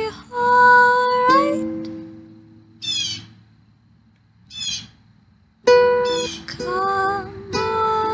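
Edited version of a pop song playing: a high melody line that drops away to near quiet about two seconds in, with two brief falling notes during the lull, and resumes about two seconds before the end.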